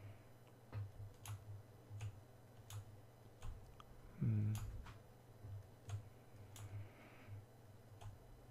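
Faint, irregular clicking from a computer mouse and keyboard in use, about nine clicks, over a steady low electrical hum. A short, louder low bump comes about four seconds in.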